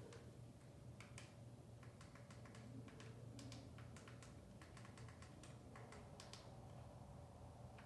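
Faint, irregular light taps and clicks, several a second, over a low steady hum.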